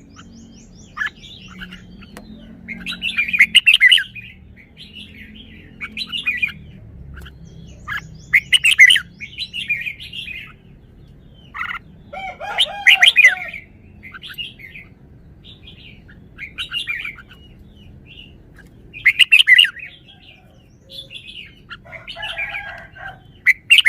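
Red-whiskered bulbul singing: five short, loud warbling phrases a few seconds apart, with softer chirps in between.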